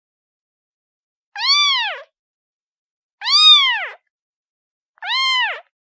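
A kitten meowing three times, about two seconds apart. Each meow rises and then falls in pitch.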